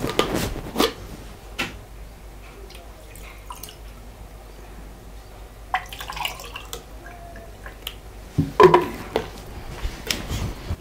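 Water poured from a plastic jug into a drinking glass around the middle, among clicks and knocks as the jug and glass are handled and set on a table; the loudest knock comes about two-thirds of the way through.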